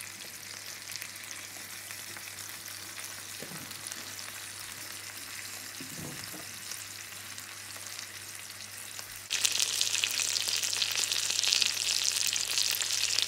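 Chicken thighs sizzling steadily in hot oil in a skillet, frying on their second side. About nine seconds in, the sizzle suddenly becomes much louder and brighter.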